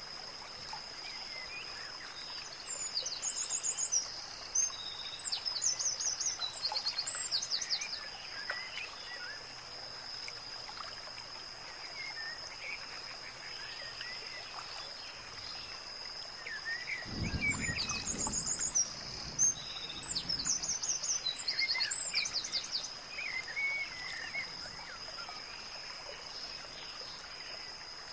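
Outdoor nature ambience: birds chirping in quick trilled phrases in two bursts of song, over a steady high-pitched hum and an even background hiss. A brief low rumble comes about two-thirds of the way through.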